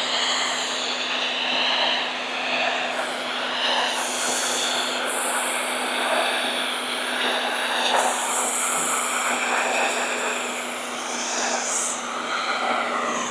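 Greenworks 1900 PSI electric pressure washer running: a steady motor-and-pump hum under the hiss of the high-pressure water spray hitting house siding. The hiss changes in tone as the spray moves across the wall.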